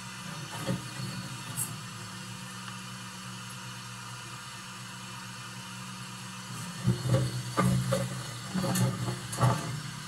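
Vacuum cleaner running steadily with a low hum and airy hiss as its hose sucks dust out of a gas water heater's combustion chamber and flame arrester. In the last few seconds the hose knocks and scrapes as it is moved around inside.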